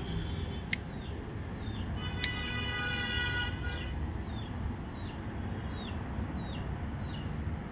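A short, falling chirp repeated at a steady pace, typical of a small bird calling, over a steady low background hum. A held, multi-tone sound passes briefly midway, and two sharp clicks stand out, one under a second in and one a bit after two seconds.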